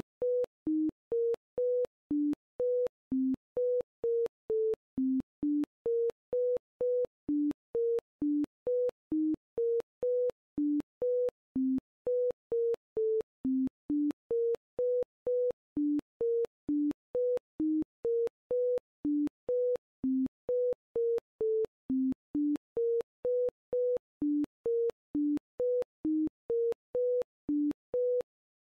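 A custom-made track of electronic beeps in an uneven pattern of a higher and a lower pitch, about two beeps a second, each clicking on and off. The beeps stop just before the end.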